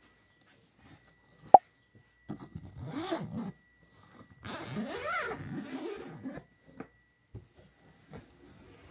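An animal calling a few times, with pitched calls that rise and fall, the longest lasting nearly two seconds in the middle. A single sharp click comes shortly before the calls.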